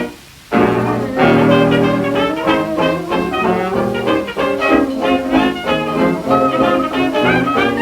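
1926 hot jazz dance orchestra played from a 78 rpm record, with brass and saxophones. The band drops out for a moment just after the start, then comes back in playing together.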